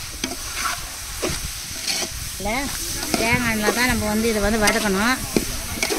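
A steel ladle stirring and scraping through onion, tomato and grated coconut frying in an aluminium pot, with a steady sizzle and scattered ladle clicks against the pot. From about halfway in, a person's voice holds long wavering notes over it.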